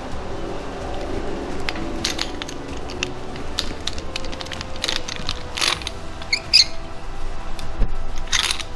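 Irregular metallic clicks and clinks of hand tools and a valve spring compressor working a valve spring and retainer on a big-block Chevy 454 cylinder head, with one ringing clink about six and a half seconds in.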